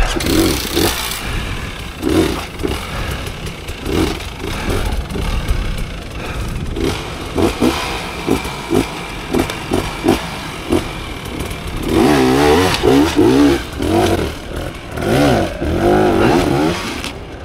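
Off-road enduro motorcycle engine revving in repeated short bursts. The throttle is blipped rapidly in the middle, then revved up and down several times near the end.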